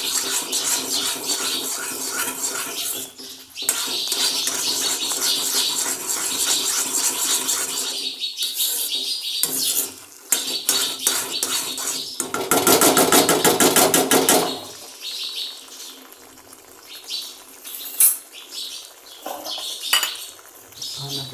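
Steel spoon stirring and scraping thick wheat-flour sheera in a metal kadai, a fast run of scrapes and clinks against the pan. The stirring is loudest for a couple of seconds just past the middle, then stops for the last several seconds.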